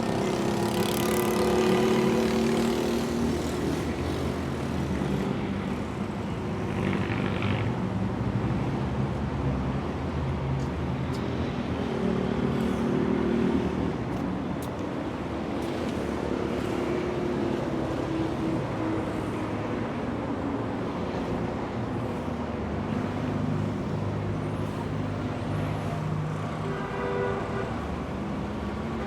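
Busy city street traffic: cars passing in a steady stream, with continuous engine hum and tyre noise. Louder passes come about two seconds in and again around thirteen seconds.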